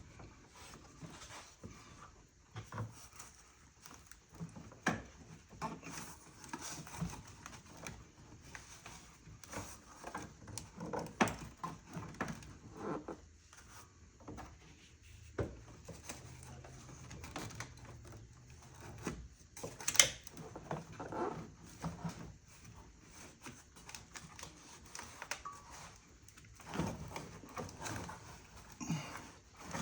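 Scattered clicks, knocks and light scrapes of a part being worked loose and lifted out of an engine bay by hand, most likely the upper intake manifold of the V6. There is one sharper knock about two-thirds of the way through.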